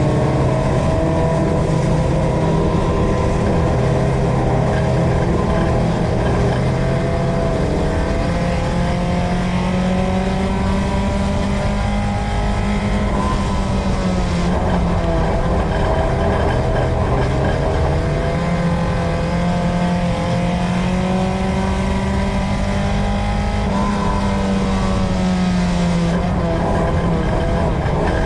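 A USRA Tuner dirt-track race car's four-cylinder engine heard from inside the car at racing speed, its pitch rising and falling as it comes off and back on the throttle, dipping about halfway through and again near the end. Low road and chassis rumble runs underneath.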